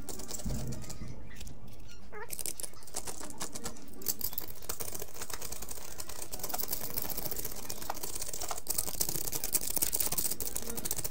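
Razor blade scraping and shaving plaster at the edge of a round hole cut in a plaster ceiling: a quick, uneven run of small scratchy clicks, busiest in the second half.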